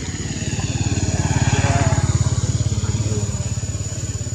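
A motorcycle engine passing by, growing louder to a peak about two seconds in and then fading.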